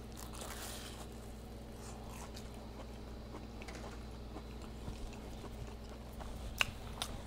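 A person chewing a bite of a deep-fried burrito with a crispy Hot Cheeto crust: soft, close-miked crunching and mouth sounds, with two sharper clicks near the end.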